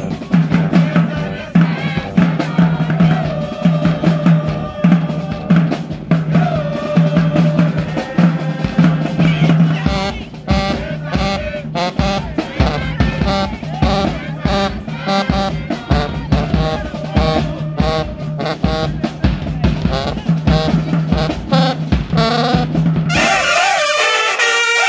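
High school marching band playing: drums keep a steady beat under a repeating low note and horn lines, and the drumming gets busier about ten seconds in. Near the end the drums and low notes drop out and the full horn section comes in.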